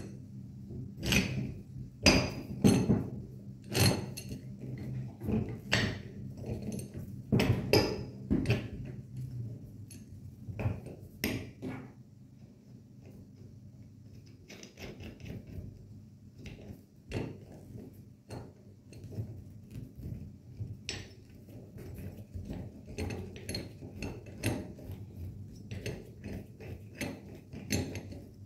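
Steel hex nuts, threaded tie rods and stretcher plates of a rubber bellow assembly clinking and knocking together as they are handled and fitted by hand. Irregular sharp clicks, frequent and loud for roughly the first twelve seconds, then fainter and sparser.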